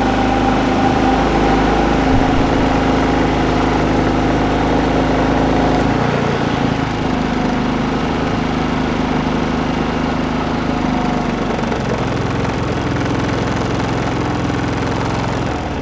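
Powerhorse 3500-watt inverter generator running steadily in eco mode under about half load from a 1500-watt heater. Its engine note shifts slightly about six seconds in and again near twelve seconds as the inverter adjusts engine speed to the load.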